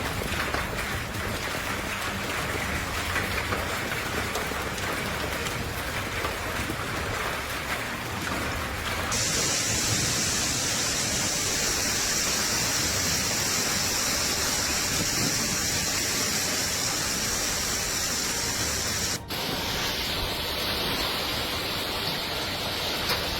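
Heavy rain pouring down in a steady, loud downpour. The sound changes abruptly about nine seconds in and again near nineteen seconds.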